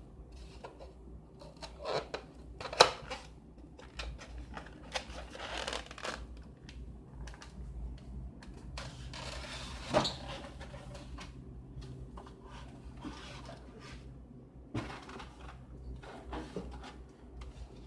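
Handling noises in a small room: a few sharp clicks and knocks, the loudest about three seconds in and another about ten seconds in, with rustling between, over a steady low hum.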